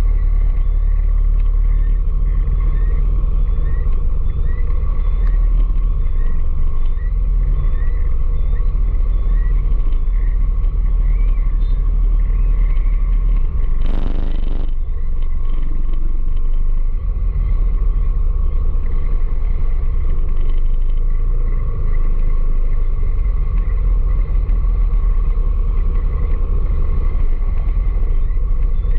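Steady low rumble of a vehicle riding through city traffic. A faint short chirp repeats about every half second through the first ten seconds, and a brief loud hiss comes about fourteen seconds in.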